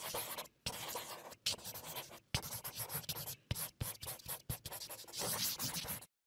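A pen scratching across paper in quick drawing strokes, in short runs broken by brief pauses and a few sharp ticks, cutting off about six seconds in.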